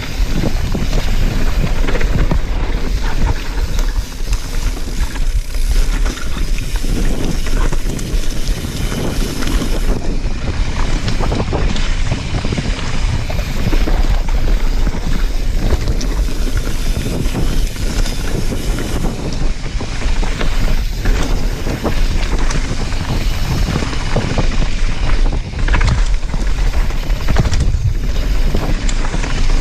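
Wind buffeting an action camera's microphone at riding speed, mixed with a mountain bike's tyres rolling on a dirt trail and frequent knocks and rattles from the bike over bumps.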